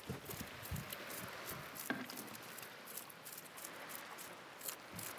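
Faint scattered clicks and light knocks of a fisherman handling and cleaning a fish with a knife on a wooden boat's gunwale.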